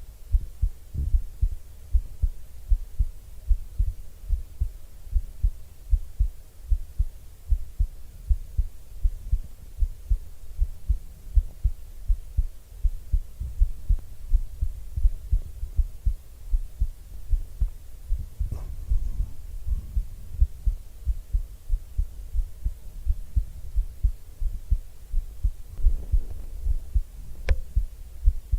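A woman's heartbeat picked up close by a microphone: a steady run of low, soft thumps. A faint click or rustle comes through a couple of times.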